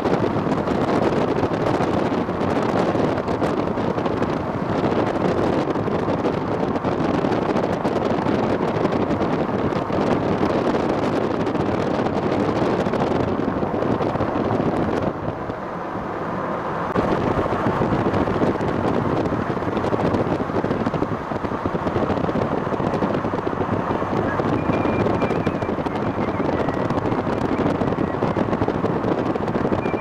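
Steady road and wind noise from a moving vehicle, easing briefly about halfway through.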